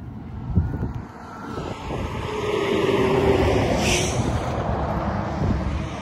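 A road vehicle passing by: its tyre and engine noise swells to a peak about three seconds in and then fades. Wind buffets the microphone throughout.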